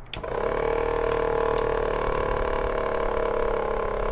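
Portable 12-volt air compressor (tire inflator) switched on with a click, then its motor running steadily. It is struggling: the compressor is under-powered, running straight off a 100-watt solar panel through a 12-volt buck converter.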